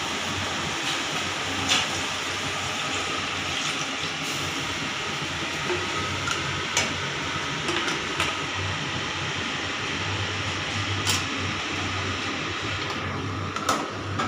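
Steady hissing noise, with a few light metallic clicks of a metal spatula against an aluminium pressure cooker as the food is stirred.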